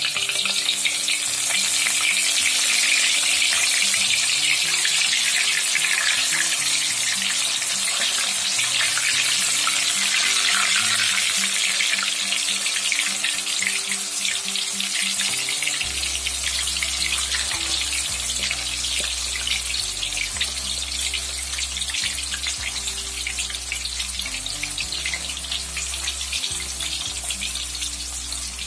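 Pieces of boiled cassava sizzling in hot oil in a wok, a dense crackling hiss that is loudest just after they go in and eases gradually as they fry. Background music plays underneath, with a bass line joining about halfway through.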